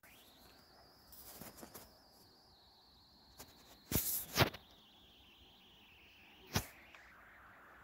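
A phone being handled against a window frame: two sharp knocks close together about four seconds in and another near the end. Under them runs a faint high steady whine that slowly drops in pitch.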